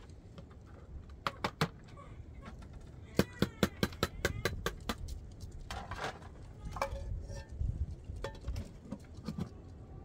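Clinking and scraping of metal cookware: a utensil striking and scraping metal bowls and a pot, with three clinks about a second in, a quick run of about a dozen clinks in the middle, and scraping near the end.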